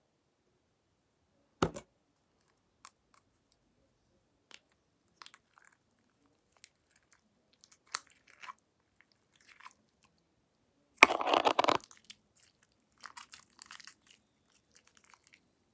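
Homemade slime being kneaded and stretched by hand: scattered sticky clicks and squishes, a louder run of wet crackling about eleven seconds in, and more crackling near the end. A single sharp knock comes about two seconds in.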